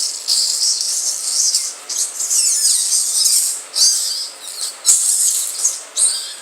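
High-pitched screeching, warbling sound effect of a vortex portal opening, coming in uneven surges.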